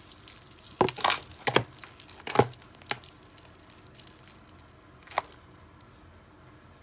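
Costume jewelry clinking and rattling in a cardboard box as a long necklace is pulled out of the jumbled pile: several sharp clicks in the first three seconds and one more about five seconds in.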